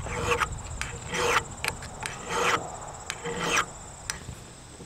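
Small hand file rasping on the steel twine cutter of a square baler's knotter, in short strokes about once a second that grow fainter toward the end. The cutter is being sharpened because, once dull, it fails to cut the twine and the knotter misses knots.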